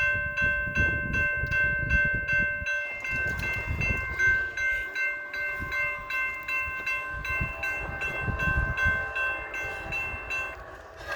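Railroad grade-crossing bell ringing in a steady rhythm of about two to three strokes a second, stopping near the end, while a train rumbles through the crossing.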